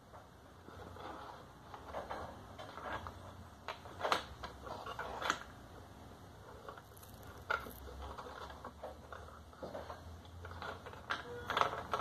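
Small round game pieces sliding along the grooves of a toy maze board, making light irregular scrapes and clicks, with a few sharper knocks as pieces hit the ends of the tracks.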